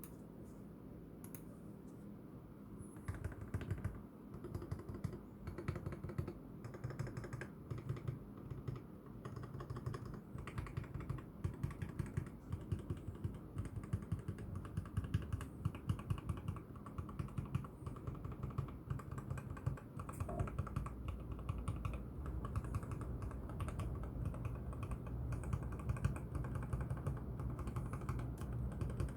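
Typing on a mechanical keyboard with lubed Kailh Box Red linear switches and tall plastic XDA keycaps, its PCB mounted on O-rings in a gasket-style mod. A few keystrokes at first, then continuous fast typing from about three seconds in, over a steady low hum.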